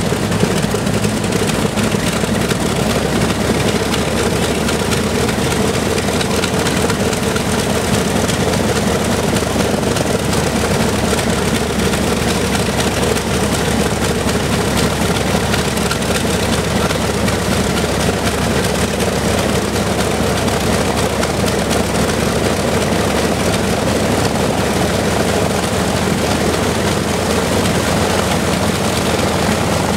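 Lockheed Super Constellation's Wright R-3350 18-cylinder radial piston engines running steadily with propellers turning, a loud, even drone.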